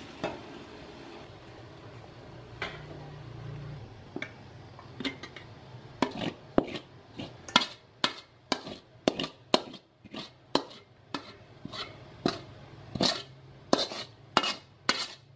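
A serving utensil knocking against an enamel bowl while tossing fried rice noodles. It starts with a few scattered knocks, then goes to about two knocks a second for the last several seconds.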